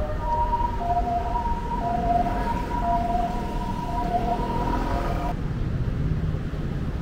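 Street ambience with a held electronic tone and a lower tone coming and going beneath it, like a siren or a played melody; the tones cut off abruptly about five seconds in.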